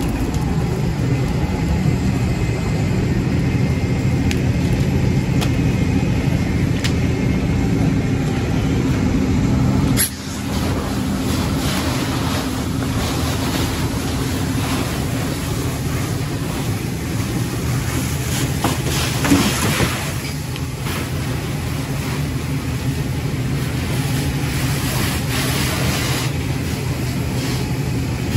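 Steady drone of a fire engine's engine running its pump, with the crackle and pops of a burning car over it. About ten seconds in the sound drops abruptly, and after that a hiss of hose spray and steam is louder.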